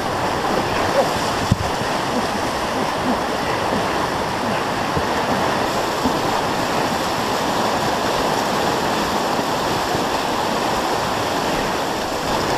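Fast, muddy floodwater rushing past in a steady, unbroken torrent, heard close up, with a light knock or two in the first couple of seconds.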